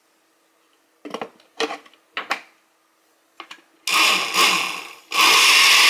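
Blender re-blending a ginger shot mixture in two runs: a first burst about four seconds in that dies away, then a steady, louder run from about five seconds in. Before it come a few light knocks.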